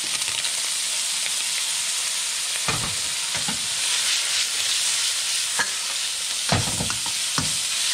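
Diced ham and carrots frying in hot peanut oil in a wok, a steady sizzle, with a metal spatula scraping and clacking against the wok a few times as the food is stirred.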